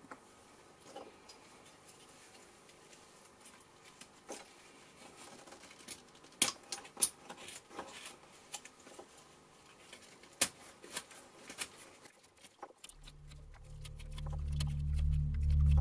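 Carving knife cutting and shaving a piece of wood, a scattered run of short, sharp slicing clicks and scrapes. Near the end a low, steady droning music fades in and grows louder.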